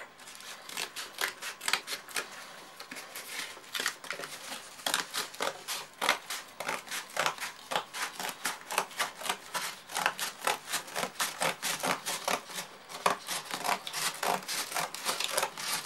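Scissors cutting through cardboard: a long run of quick snips, a few each second.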